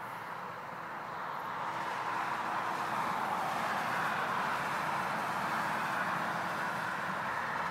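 Road traffic: a steady rush of tyre and engine noise from passing vehicles, swelling over the first couple of seconds and then holding.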